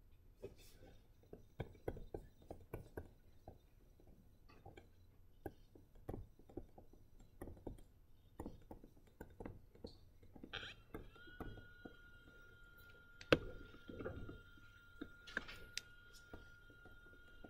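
Pen or stylus writing on a tablet: a string of faint taps and clicks, with one sharper click about thirteen seconds in. About ten seconds in, a steady high whine starts and holds.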